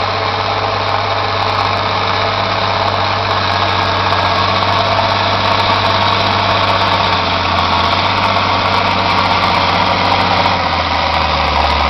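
International Harvester 1486 tractor's turbocharged six-cylinder diesel running steadily under load while pulling a chisel plow through the soil, growing slightly louder as it comes closer. Its low note drops a little near the end.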